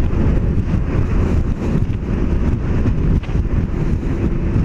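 Scooter on the move: wind noise on the rider's microphone over the steady drone of the scooter's engine and road noise.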